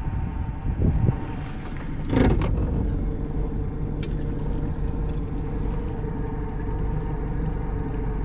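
A boat motor running steadily with an even hum, with a sharp knock about two seconds in.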